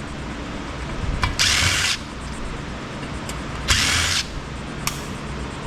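A cordless power driver backing out screws in two short bursts, each about half a second long, with a few light metal clicks in between.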